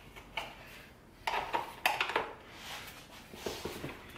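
Plastic retaining clips in a C8 Corvette center console trim being pried and popped up: several separate sharp plastic clicks with a light clatter.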